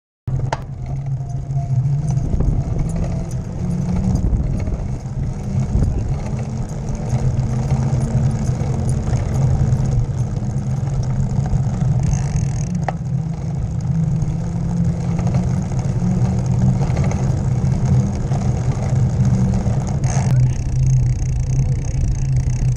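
Bicycle rolling over an asphalt road, heard through a camera mounted low beside the wheel: a steady low rumble, with a few sharp knocks from bumps.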